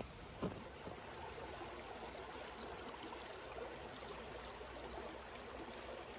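Shallow creek water trickling steadily over rocks at the foot of a frozen waterfall, faint. A single footstep-like knock comes about half a second in.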